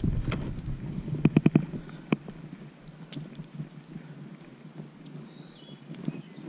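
A quick run of small sharp clicks about a second in and one more shortly after, from hands handling the fishing line and spinner close to the microphone, over a low steady rumble.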